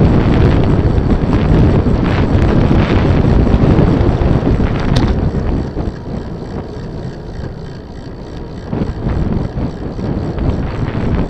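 Wind buffeting the microphone of a bike-mounted camera as the bicycle rides at speed. The noise eases off in the middle as the bike slows through a bend, then builds again. There is a single sharp click about five seconds in.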